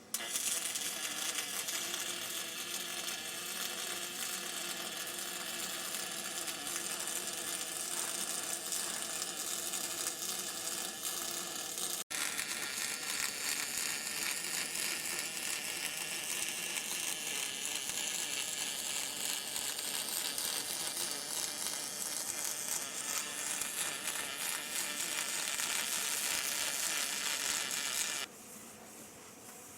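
MIG welding arc on aluminium: a steady sizzling buzz as a bead is run. It breaks off for an instant about twelve seconds in and stops near the end.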